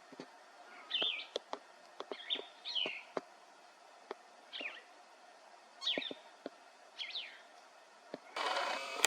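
A bird calling over and over, short downslurred notes about once a second, with scattered sharp clicks between them. A brief burst of rustling noise comes near the end.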